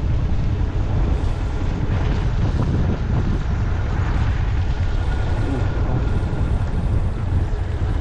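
Steady rumble of wind on the camera microphone while riding a motorcycle, with the vehicle's running noise under it.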